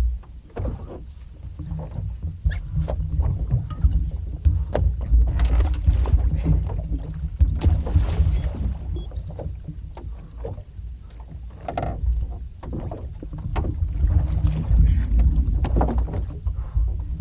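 Wind on the microphone and a steady low rumble on a small fishing boat, with repeated knocks and clatter of gear as the angler works the line at the side. About eight seconds in, water splashes against the hull.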